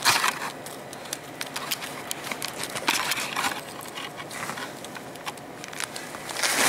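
Irregular clicks and rustling close to the microphone, with a louder burst at the start and two around three seconds in: a padded camo jacket brushing against the camera and hands handling it.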